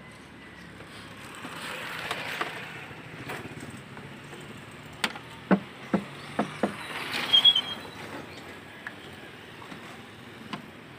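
Hands handling plastic and metal parts in a van's engine bay: a quick run of five or six sharp clicks and knocks about halfway through, over a faint steady background.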